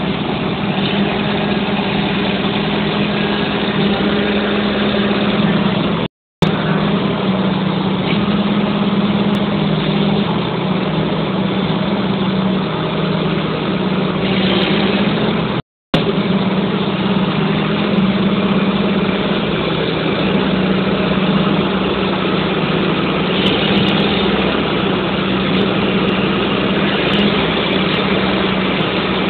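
Diesel engine of a Huddig 1260 articulated backhoe loader running steadily with a deep hum and slight changes in pitch. The sound cuts out abruptly twice for a moment, about six seconds in and again near the middle.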